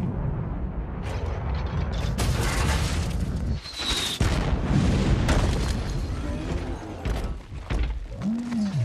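Film sound effects of a missile strike: a short high whistle as the missile comes in, then a heavy boom on impact about four seconds in. Under it run a steady low rumble and metallic mechanical clatter.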